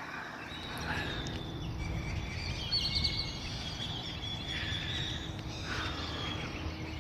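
Outdoor street ambience: a steady low background rumble, with faint high bird chirps through the middle few seconds.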